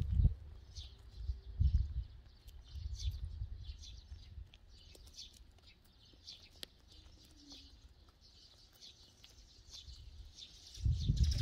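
Eurasian tree sparrows chirping: short, high chirps repeated every half second to a second. Low rumbling bursts come at the start and again near the end, with a single sharp click around the middle.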